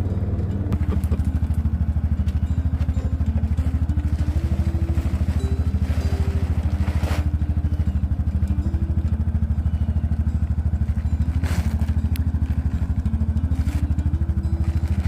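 A vehicle engine running steadily, with an even, fast low pulse and no revving.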